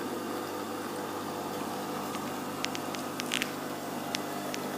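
Automatic bean-to-cup coffee machine brewing a double espresso: a steady hum with faint, irregular clicks.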